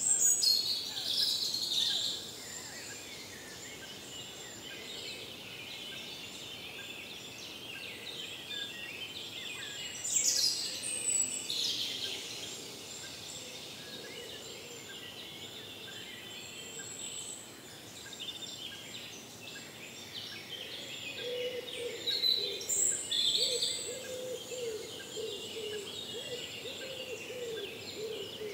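Wild songbirds calling and singing in a forest over a faint steady hiss, with louder bursts of song right at the start, about ten seconds in, and again about twenty-two seconds in.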